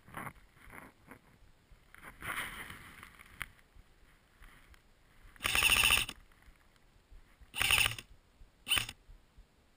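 Airsoft high-capacity magazine being wound by its thumb-wheel: three bursts of rapid ratcheting clicks, the first and longest about half a second, with some clothing rustle before them.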